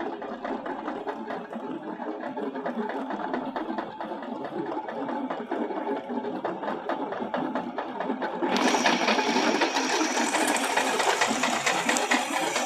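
Tractor-mounted chain trencher digging through dry, stony soil: a dense, rapid rattle and clatter of the digging chain and its teeth, with the tractor running. About eight and a half seconds in the sound turns abruptly louder and brighter, with a thin high whine.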